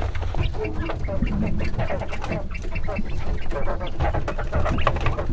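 A flock of poultry calling over one another with many short, rapid calls while being fed.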